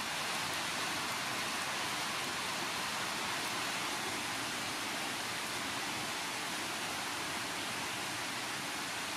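Steady heavy rain falling on leaves and undergrowth, an even hiss with no breaks.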